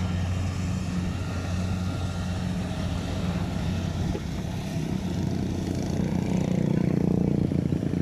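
Kubota rice combine harvester running steadily as it harvests, a low engine drone that grows a little louder near the end.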